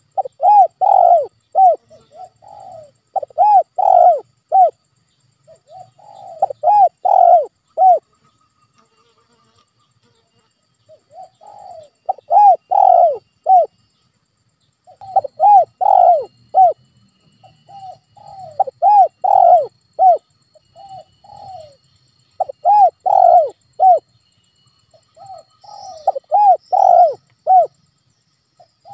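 Spotted dove cooing: repeated phrases of three or four coos, each note rising and then falling in pitch, with pauses of one to three seconds between phrases and a longer pause about a third of the way through.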